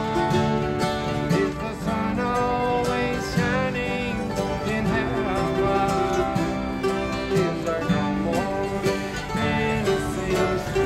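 Bluegrass string band playing a tune together: fiddle, mandolin and strummed acoustic guitar.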